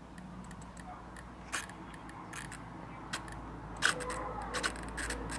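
Short clicks and rubbing as fingers handle the servo leads and connectors plugged into the V-Bar flybarless controller of a radio-controlled helicopter; the clicks come more often and louder from about four seconds in.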